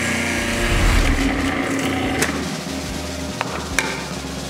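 Breville Sous Chef 16 Pro food processor running, its dicing blades cutting Roma tomatoes pushed down the feed chute. A steady motor hum, with a few sharp clicks in the second half.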